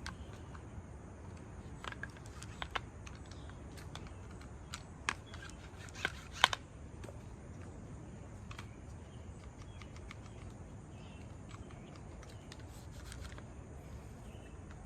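Scattered small clicks and taps from the parts of a mower's recoil starter being handled and fitted, with a few sharper clicks about five to six and a half seconds in, over a low steady background.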